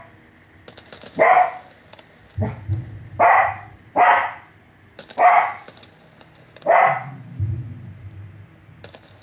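American Cocker Spaniel barking about five times, sharp single barks about a second apart, set off by the sound of fireworks. Between the barks come low booms of fireworks playing from a tablet's speaker.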